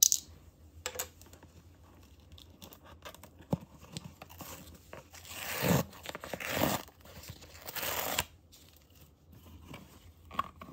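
Plastic packing tape being peeled off a cardboard box in three long, noisy rips, after a few small taps and rustles.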